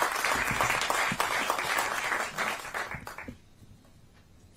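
Audience applauding, the clapping dying away a little after three seconds in.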